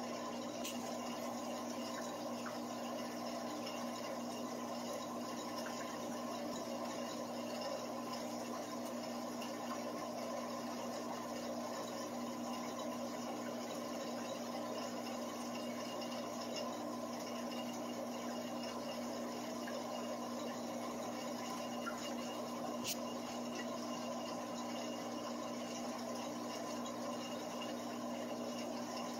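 Aquarium filter pump running steadily: a constant hum with the sound of moving water.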